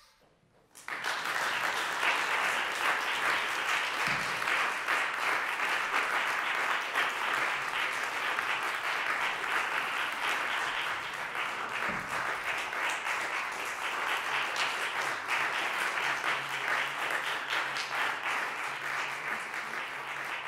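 Audience applauding: dense clapping starts abruptly about a second in, after a near-silent moment, and keeps up steadily.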